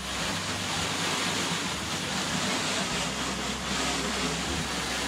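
Garden hose spray nozzle jetting water onto an aluminum boat hull, a steady hissing splash that comes on abruptly, rinsing off the hull cleaner.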